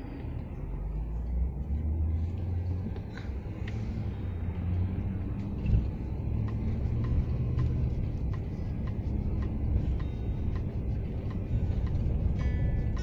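Road noise heard from inside a moving car: a steady low rumble of engine and tyres. Music comes in near the end.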